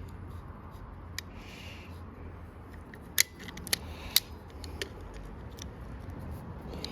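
Mole grips (locking pliers) being worked onto a rounded screw head: a few sharp metallic clicks, the loudest about three and four seconds in.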